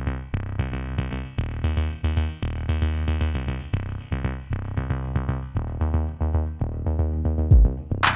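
Electronic music: a synthesizer line over a steady drum-machine beat, with a deep thump about seven and a half seconds in.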